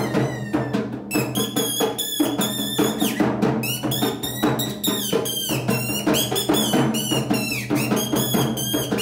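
Kathputli puppet-show accompaniment: a dholak hand drum beaten in a quick, steady rhythm, with a high warbling tone rising and falling over it.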